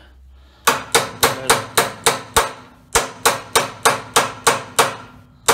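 A hammer strikes a socket used as a driver, pressing a U-joint bearing cap into a Jeep drive shaft yoke. It is a quick run of sharp metal blows, about four a second, with a short pause in the middle and one last blow near the end.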